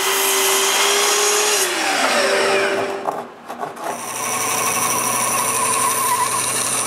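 Festool Kapex sliding miter saw running and cutting wood, its pitch sliding down briefly partway through. After a short break, a bandsaw runs steadily from about four seconds in, cutting a board.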